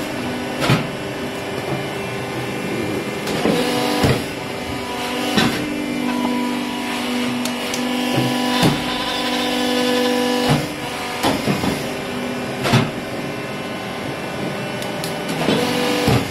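Hydraulic biomass briquette press running on sugarcane bagasse as briquettes are pushed out: a steady motor and pump hum with short sharp knocks every second or two.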